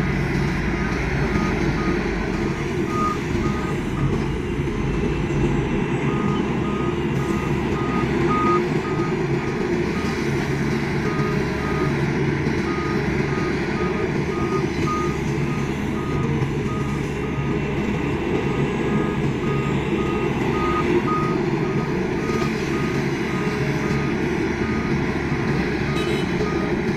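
Excavator diesel engine running steadily while its warning alarm beeps over and over at an even pace, breaking off for a couple of seconds about four seconds in.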